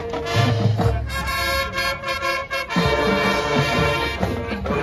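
Marching band playing brass-heavy music. About a second in, the band holds a long chord with deep low brass underneath, then goes back to short rhythmic playing near three seconds.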